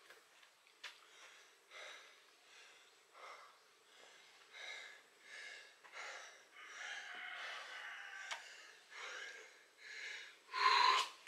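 Hard, quick breathing of a person exerting himself through a set of burpees, one sharp breath after another about every second, with a louder gasping breath near the end.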